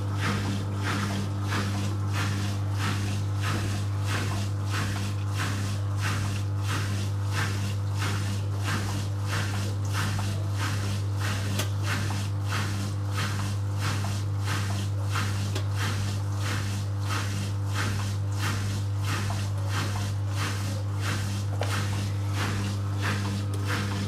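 Zanussi FL 1234/A front-loading washing machine running with its drum turning, a steady motor hum under a rhythmic swish about twice a second.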